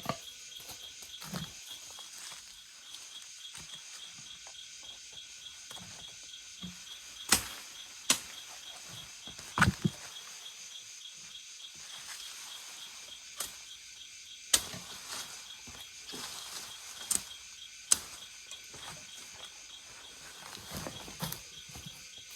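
Steady high insect chorus in the forest, with several sharp knocks or snaps at irregular intervals, a few seconds apart.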